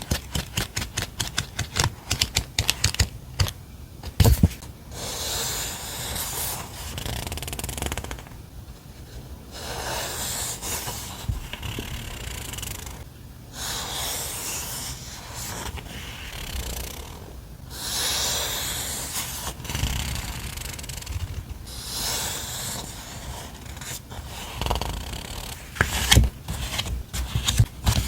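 Stationery and its packaging being handled by hand: a quick run of crinkling clicks, then long stretches of rustling and scraping with brief pauses, then a few sharper crinkles and clicks near the end.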